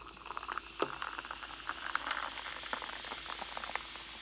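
Izze sparkling blackberry drink fizzing in a freshly poured glass: many small crackles from bursting bubbles over a steady hiss, thinning out to a soft fizz near the end.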